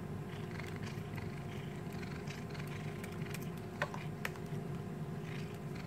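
Cat chewing and gnawing on a bourbon biscuit held in a hand: soft crunching ticks, with two sharper clicks a little after the middle, over a low steady purr.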